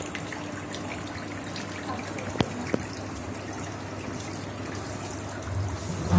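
Steady trickling of water, with two light clicks about two and a half seconds in and a low rumble near the end.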